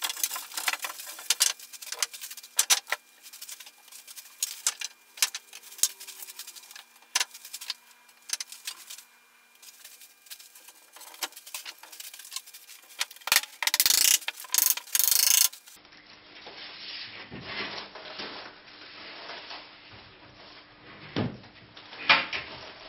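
Timber battens and OSB boards being handled and set into a wooden formwork: scattered knocks, taps and scrapes of wood, with a longer, louder scraping stretch about two-thirds of the way through.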